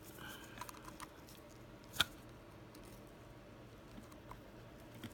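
Faint clicks and scrapes of a flathead screwdriver and gloved fingers working at the plastic wiring connectors on a distributor's igniter, with one sharp click about two seconds in.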